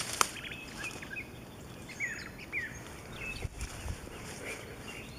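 Small birds calling in short, scattered chirps over a quiet outdoor background, with a low thud or two about midway.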